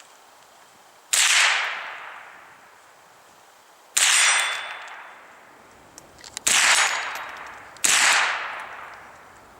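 Four single shots from a Walther/HK G36 rimfire rifle in .22 LR, fired semi-auto at an unhurried pace a few seconds apart. Each sharp crack is followed by a long fading echo, and a few faint clicks come just before the third shot.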